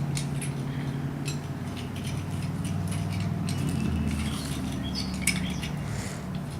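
Light metallic clinks and rattles from a car jack being turned by hand, over a steady low engine hum, with birds chirping now and then.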